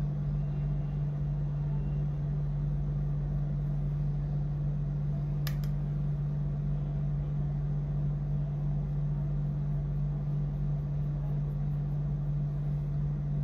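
Steady low hum with no change in pitch or level, with one short click about five and a half seconds in.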